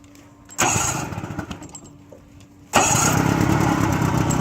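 A 1967 Evinrude Fastwin 18 hp two-cylinder two-stroke outboard being electric-started. The first attempt, about half a second in, bursts into sound and fades out within about a second and a half. A second attempt, near three seconds in, catches and settles into steady running.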